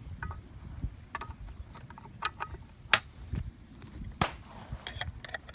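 Stoeger double-barrel coach gun being put back together: several sharp metal clicks and snaps as its parts are fitted, the loudest about three seconds in.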